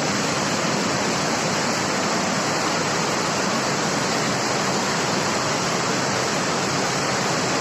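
Fast-flowing river in flood, a loud steady rush of turbulent water.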